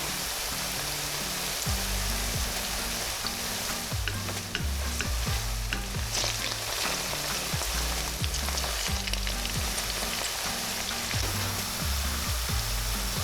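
Food frying in a pan: a steady sizzling hiss with scattered small crackles.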